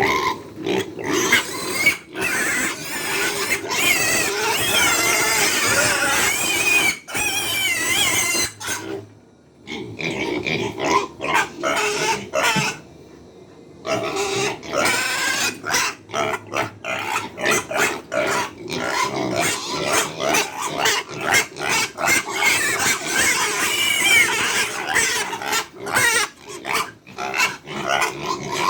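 Hungry pigs squealing loudly together, a continuous din of overlapping wavering cries, with two brief lulls about nine and thirteen seconds in.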